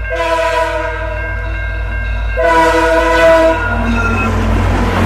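Chord horn of VIA Rail's Ocean passenger train sounding a long blast, then a shorter blast about halfway through, over the low rumble of the locomotive. As the horn stops, the noise of the train rolling by grows.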